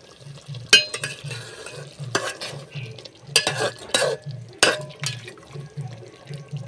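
Spoon stirring chicken in a cooking pot over low heat, with about six sharp scrapes and knocks against the pot.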